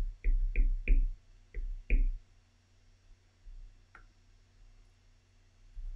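A quick run of about six light taps or knocks in the first two seconds, each with a dull low thud and a sharp click, then a single fainter tick about four seconds in.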